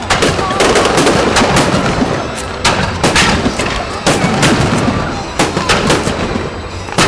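Fireworks display: aerial shells and low-level effects bursting, many sharp bangs in quick, irregular succession over a continuous crackling din.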